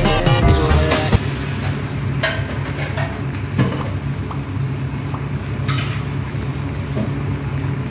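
A wooden spoon stirring a bubbling coconut-milk stew in a stainless steel pot, with scattered knocks of the spoon against the pot that thin out after about six seconds. A steady low hum runs underneath.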